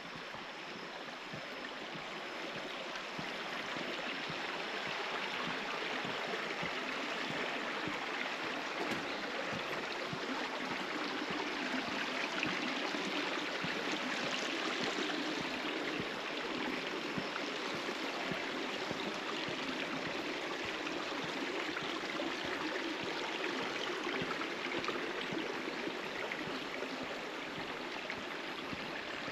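Clear mountain stream flowing and babbling steadily, a little louder after the first few seconds.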